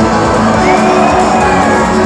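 Rock band playing live and loud, electric guitars and drums, heard from inside the audience, with crowd shouts over the music.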